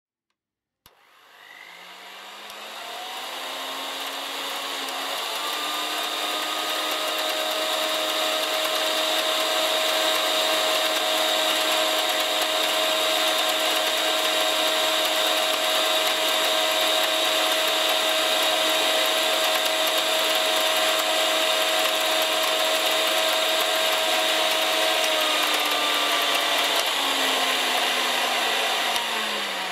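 1980s Gorenje M202 electric hand mixer switched on with a click, its motor whine stepping up in pitch through its speeds, then running steadily at top speed with the wire beaters spinning unloaded in the air. Near the end it steps back down in pitch and starts to wind down.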